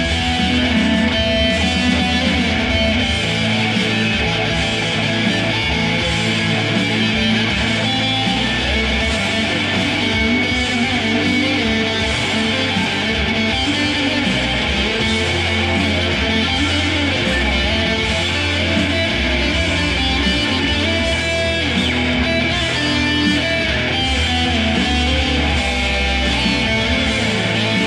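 Electric guitar being played without a break.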